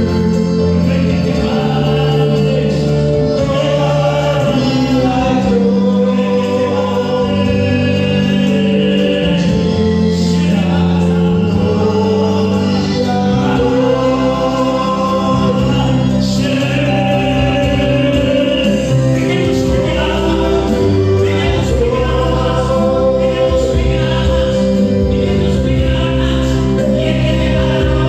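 Choir singing gospel music, continuous and loud.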